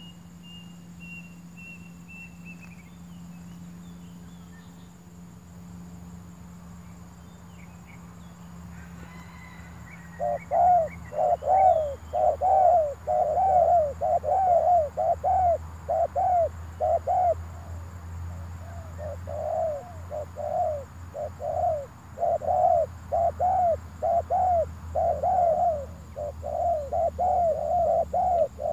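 Spotted doves, a decoy and a wild dove that has come down beside it, calling at close range. About ten seconds in, a loud, fast run of short repeated cooing notes begins and continues. A faint high whistle sounds in the first few seconds.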